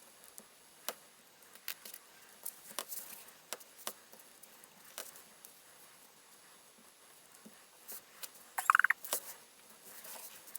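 Scattered light clicks and taps of plastic Lego pieces being handled and pressed together, with a brief high squeak about nine seconds in.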